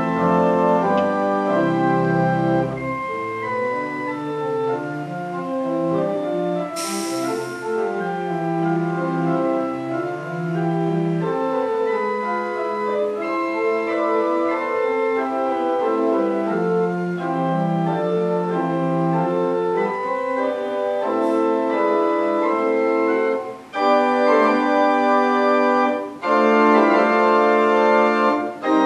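Church organ playing a hymn piece in sustained full chords that change every second or so, with two brief breaks between phrases near the end. A short burst of hiss sounds about seven seconds in.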